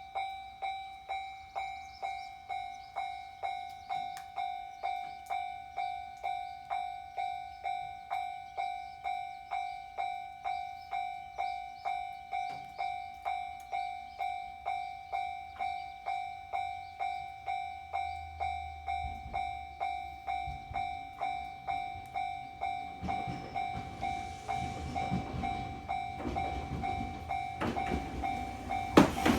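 Japanese level-crossing warning bell ringing in an even, repeating ding-ding rhythm at a single pitch. About two-thirds in, the low rumble of an approaching Echizen Railway train comes in and grows louder, with a sharp clack near the end.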